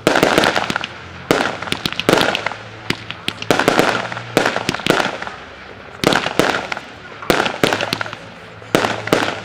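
Aerial firework shells bursting in quick succession: sharp bangs roughly every half second to a second, each trailing off in an echo.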